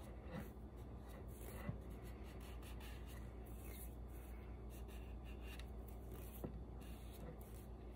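Faint rubbing as excess sealer is wiped off the edges of a grouted mosaic's wooden frame, with a couple of light taps, one just under two seconds in and one about six and a half seconds in, over a low steady hum.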